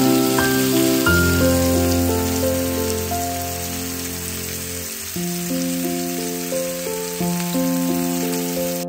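Masala-coated pomfret sizzling steadily as it shallow-fries in coconut oil in a pan, with background music of held notes over it.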